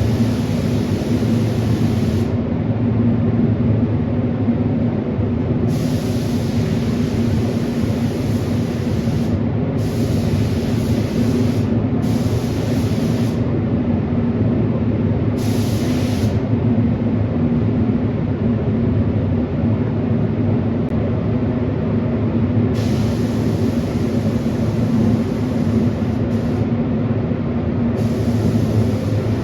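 Air-fed paint spray gun hissing in repeated trigger pulls of one to three seconds, spraying coats on the gas pump doors, over a steady low machine hum.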